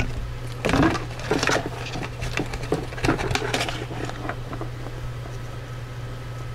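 Cardboard rustling, scraping and tapping as a cardboard panel fitted with ionizers is handled and pressed into a cardboard box, busiest in the first few seconds and then quieter. A steady low hum runs underneath.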